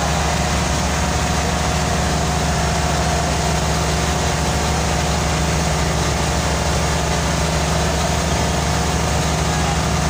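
Passenger boat's engine idling steadily, heard from inside the cabin: a constant low drone with a steady higher hum above it, while the boat waits at port before departure.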